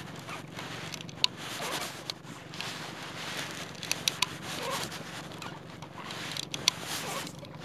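Close handling noise of hands working a fishing hook and line right at the phone's microphone: rustling and scraping, with several sharp clicks, a quick cluster of them about four seconds in.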